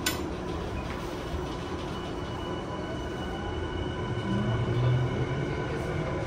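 Tokyu 5050 series train heard from inside the car as it pulls away: the Hitachi IGBT-VVVF inverter and traction motors give a thin electric whine that rises in pitch as the train accelerates, over a steady running rumble. A sharp click comes right at the start.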